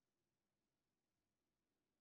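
Near silence: only faint background hiss.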